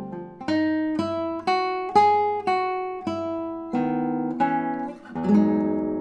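Solo classical guitar playing plucked notes about two a second in a line that climbs and falls back, moving into fuller chords; after a brief dip about five seconds in, a passage of lower, fuller notes begins.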